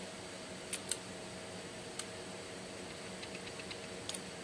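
Socket ratchet wrench clicking as it is worked on a gear-train bolt of a Hino 300 engine: a few separate sharp clicks, and about three seconds in a quick run of faint ticks as the handle swings back. A steady hum runs underneath.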